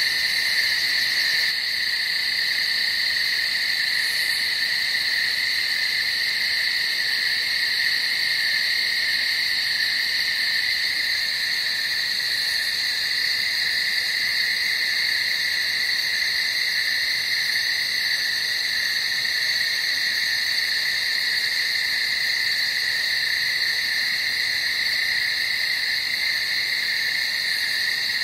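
Steady night-time chorus of calling animals, a continuous high-pitched sound with no pauses or changes.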